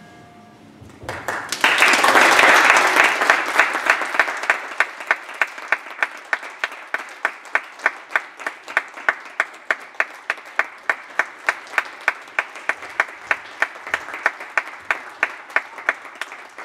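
Audience applauding: the applause swells about a second in, then settles into steady, even clapping at about three claps a second.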